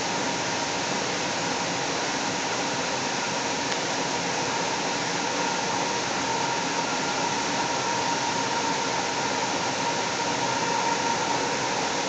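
Steady running noise of a Link light rail car in motion, heard from inside the car: an even rushing hiss with a faint, steady whine.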